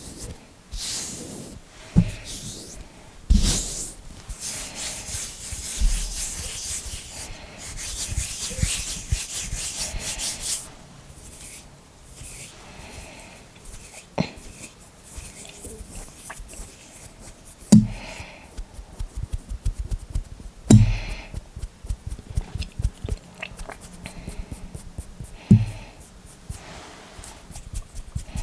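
Hands rubbing together close to the microphone: a dry, hissy skin-on-skin swishing, loudest in the first ten seconds. Later come quieter finger movements with rapid little clicks, broken by a few sharp, loud knocks.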